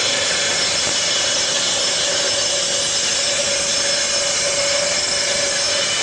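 Self-built bandsaw mill running steadily: a loud, even rushing noise with a constant mid-pitched whine.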